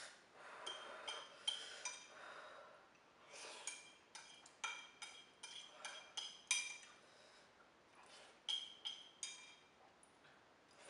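Wooden chopsticks clinking and scraping against a ceramic noodle bowl: many short, ringing clinks as the last noodles are scooped up. Between the clinks, faint hard breathing and sniffling from eating very spicy noodles.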